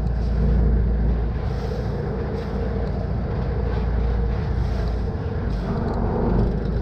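Khlong Saen Saep express boat's diesel engine running with a steady low rumble as the boat lies alongside the pier, heard from on board.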